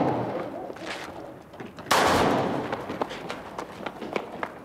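Handgun shots: the dying echo of one shot, then another sharp shot about two seconds in whose report rings on and fades over more than a second. Footsteps on pavement run between the shots.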